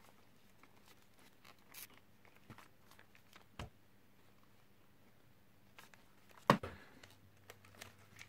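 Plastic body of a Nikon SB-900 flashgun being handled: scattered light clicks and scrapes, a dull knock a little past the middle, and one sharper knock about six and a half seconds in.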